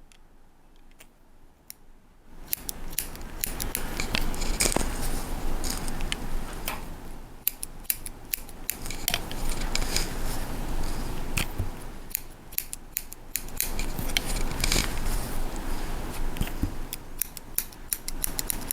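Hair-cutting scissors snipping through short hair in rapid, irregular close-up snips, with a rustle of hair. The snipping starts about two seconds in.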